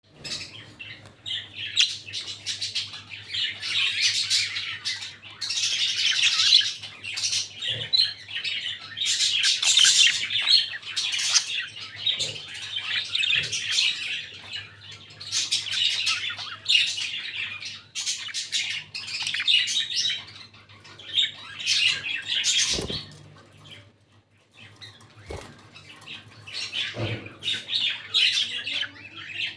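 Budgerigars chattering, a dense stream of chirps and warbles with a brief lull about three-quarters of the way through. A few soft low knocks and a faint steady hum sit beneath.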